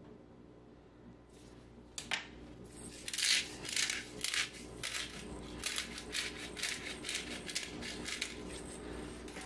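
Black pepper grinder being twisted over a pot, a run of gritty crunching clicks about three a second, starting after a single click about two seconds in.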